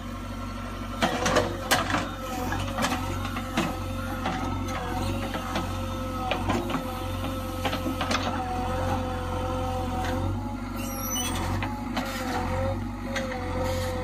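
JCB 3DX Xpert backhoe loader's 49 hp JCB diesel engine running with a steady high whine, while the backhoe bucket digs soil, with scattered knocks and clanks of the bucket and stones.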